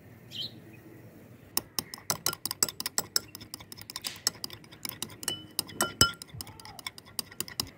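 Steel spoon beating eggs in a small glass bowl: rapid, irregular clinks of the spoon against the glass, some ringing briefly, starting about a second and a half in.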